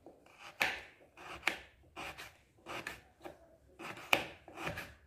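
Rhythmic rasping strokes, about eight in five seconds, each opening with a sharp scrape, from food being worked by hand in a kitchen.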